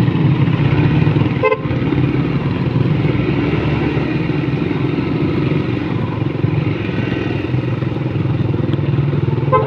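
Motorcycle engine running steadily while riding, heard close up from the moving bike, with other motorcycles riding along ahead.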